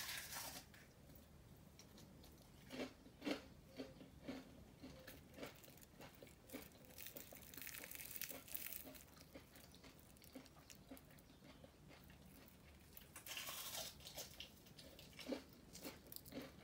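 Faint crunching of crispy panko-crusted fried okra: a few single crunches a few seconds in, a short cluster of crackles about eight seconds in, and more crunches near the end.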